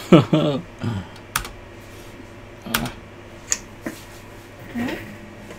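A few separate computer keyboard key clicks, spaced out, with short pauses between them.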